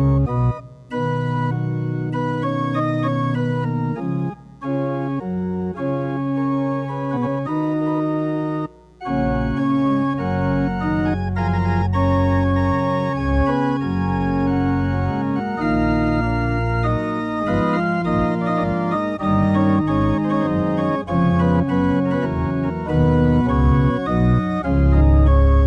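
Organ music: held chords with moving notes over a sustained bass, pausing briefly about a second in and again about nine seconds in.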